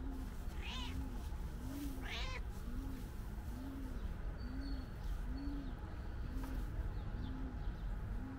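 A calico cat meowing twice, a short meow about a second in and a longer one soon after.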